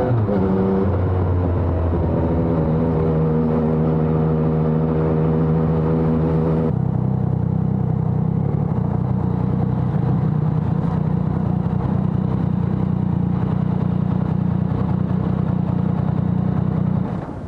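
Yamaha XSR900's inline-three engine through a LeoVince Evo One full exhaust system, dropping in revs at the start and then pulling at a steady pitch. About seven seconds in, the clear engine note gives way to a dense low rumble, which cuts off sharply near the end.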